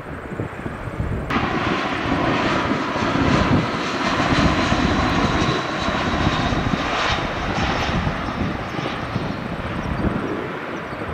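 Jet airliner engines: a steady roar with a thin high whine. It jumps abruptly louder about a second in, then slowly eases.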